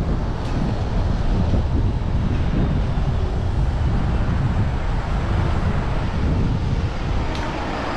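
Wind buffeting the microphone of a camera riding along on a bicycle, a steady low rumble with road traffic beneath it. Two light clicks, one about half a second in and one near the end.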